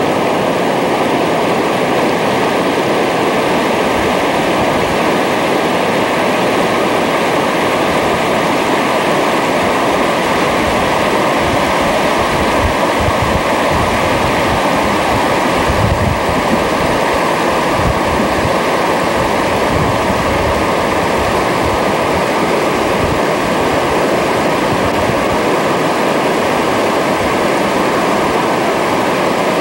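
Mountain river rushing over rocks in white-water rapids: a steady, loud wash of water noise, with some low wind buffeting on the microphone around the middle.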